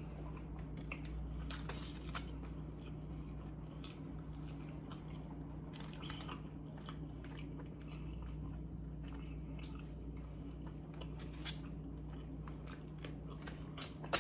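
Close-up mouth sounds of a person chewing a hamburger, with scattered small wet clicks and smacks, over a steady low hum.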